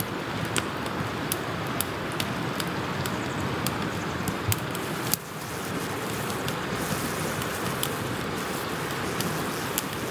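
Campfire crackling, with irregular sharp pops over a steady rushing background.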